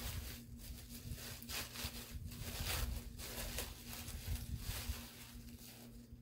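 Crumpled blue tissue-paper wrapping rustling and crinkling in repeated short strokes as a bar of soap is unwrapped by hand.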